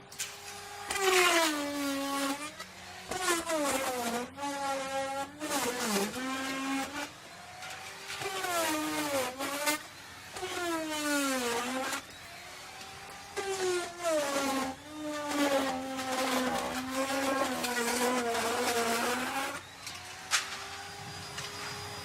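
Electric wood router cutting wood in repeated passes. Its motor whine drops in pitch each time the bit loads up in the cut and climbs back as it frees. One long cut runs through the middle, and the router runs free at a steady higher whine near the end.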